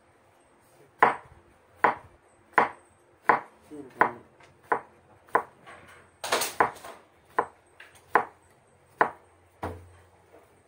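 Kitchen knife slicing cucumber on a wooden cutting board. The blade knocks on the board about a dozen times, roughly once every 0.7 s, starting about a second in, with one longer, rougher scraping cut around the middle.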